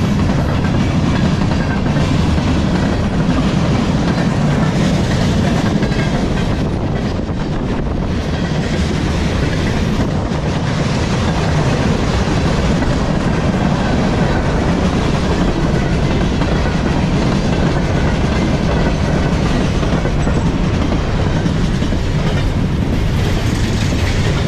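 Freight cars of a long mixed train rolling slowly past close by: a steady noise of steel wheels running on the rails.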